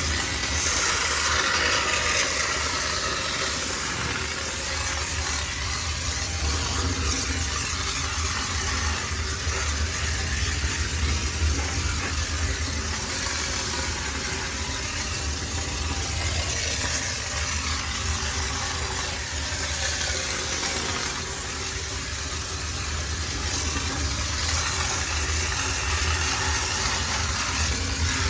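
High-pressure steam sterilizer jetting steam into a washing machine: a steady hiss over the low hum of the steam unit's machinery.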